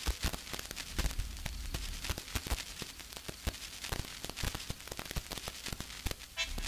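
Crackling, static-like noise full of scattered clicks and pops; a tune starts faintly near the end.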